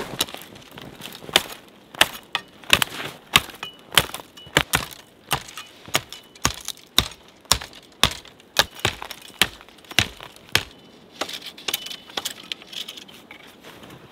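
Dry sticks and twigs snapping as they are broken off by hand, a run of sharp cracks about twice a second that stops about ten and a half seconds in.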